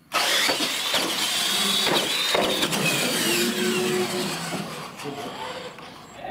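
Two electric radio-controlled monster trucks launching off the start line and racing. Their motors and gears give a loud whine that slides down in pitch as they run out, with a few knocks, and the sound fades toward the end.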